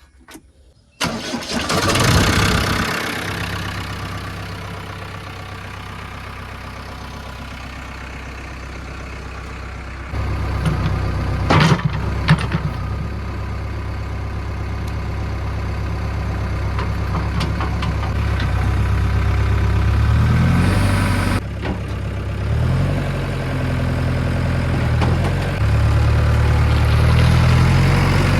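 JCB 3DX backhoe loader's diesel engine starting about a second in and settling to an idle, then run up to higher revs in steps, with two sharp knocks a little after the revs first rise.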